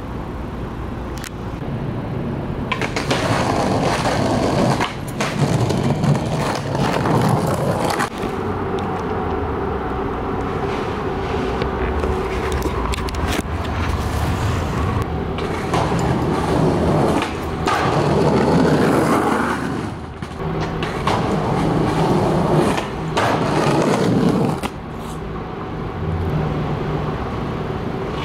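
Skateboard wheels rolling over stone paving in several long runs, with a few sharp clacks of the board between them.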